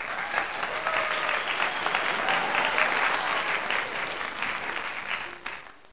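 Crowd applauding, a dense patter of many hands clapping that starts abruptly and fades out over the last second.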